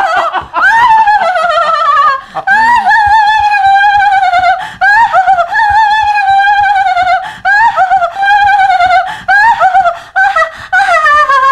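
A loud, high warbling melody with strong vibrato, in phrases of about two seconds, each ending in a downward slide, with a final long falling slide near the end.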